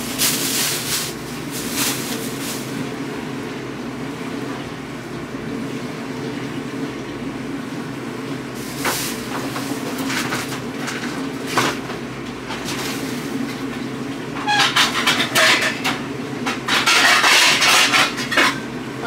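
A steady low mechanical hum runs throughout. Short bursts of rustling and clatter from things being handled come near the start, around 9 to 12 s, and in a busier stretch from about 14.5 to 18 s.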